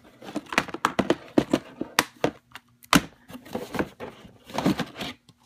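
Plastic DVD cases being handled and shuffled on a paper mailer: irregular clacks and taps of the cases knocking together and being set down, with some paper rustling.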